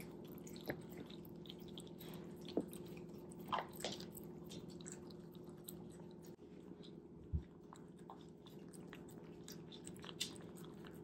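A Shiba Inu eating, with faint scattered clicks and smacks of chewing and a few louder ones, over a steady low hum.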